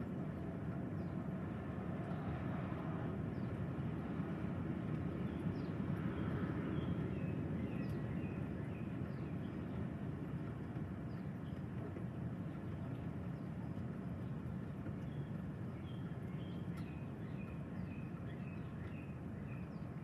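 Strong wind blowing steadily, swelling a little about six seconds in, with a small bird chirping repeatedly over it.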